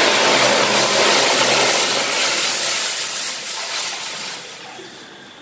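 Water poured in a steady stream into a hot steel kadhai, gushing into the pan, and tailing off over the last couple of seconds.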